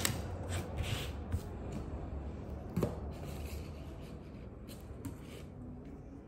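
Hands handling yellow plastic beads and clear elastic bead cord while stringing a bracelet: a scattering of short clicks and rustles that grows quieter toward the end.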